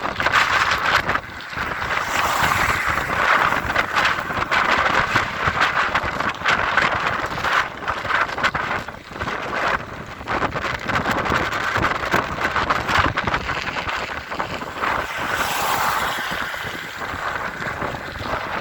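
Strong wind buffeting the microphone, a loud, uneven rush that rises and falls in gusts.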